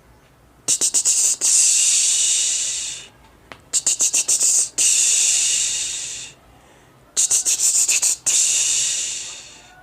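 A man makes a hissing 'sss' sound with his mouth three times. Each time starts with a quick run of about five short hisses and ends in one long hiss that fades away. It is a speech-therapy exercise for nasal speech, pushing the air out through the mouth instead of the nose.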